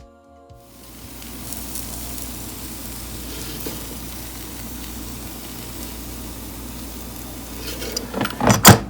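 Breaded fish frying: a steady sizzle that sets in about half a second in, with a few loud knocks near the end.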